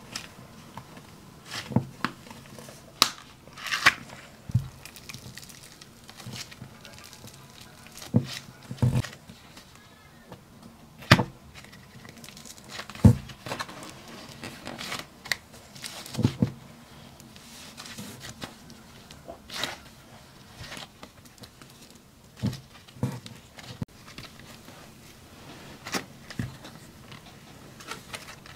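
Grainy dark caviar slime being pulled apart, squeezed and kneaded by hand: short, sharp tearing and crackling sounds at irregular intervals, a second or two apart.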